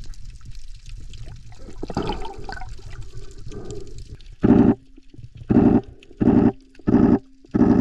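Muffled water gurgling and rushing, as heard through an underwater camera, for about four seconds. Then music comes in with a slow, evenly pulsing beat over a held note.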